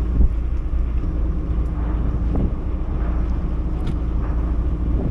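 Fishing boat's engine running steadily with a low hum, mixed with wind buffeting the microphone; one low knock just after the start.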